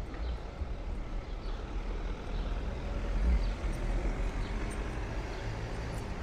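City street traffic: a steady low rumble of vehicles, swelling as one passes about three seconds in.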